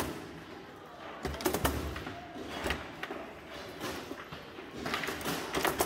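Foosball table in play: the hard ball knocking off the plastic players and the table walls, with rods clacking. Sharp knocks come at uneven intervals, a few close together about a second and a half in and again near the end.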